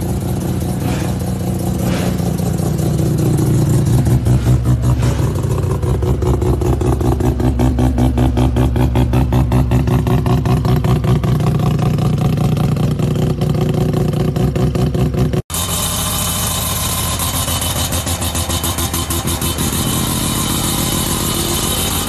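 Mazda RX-7 (second-generation FC) 13B rotary engine running, with a rapid, evenly pulsing exhaust note. After a sudden cut about fifteen seconds in, a second rotary car, a Mazda RX-2, is heard idling.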